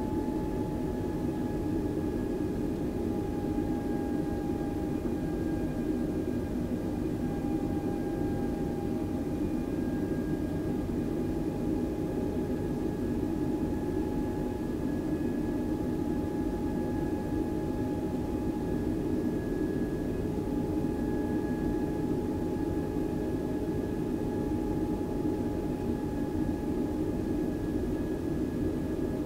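Airbus A320 jet engines running steadily, a constant rumble with a steady whine on top that drifts slightly lower in the first few seconds.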